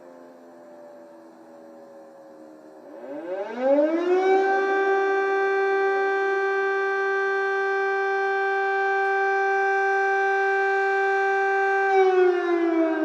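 Ukrainian air raid siren wailing: a faint tone falling slowly, then about three seconds in the pitch rises quickly and the siren gets much louder, holding one steady note for about eight seconds before it starts to fall again near the end.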